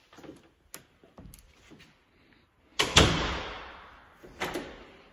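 Interior door banging shut about three seconds in, the bang ringing on in an empty room for over a second, with a second lighter knock soon after and faint clicks of the door and latch before it.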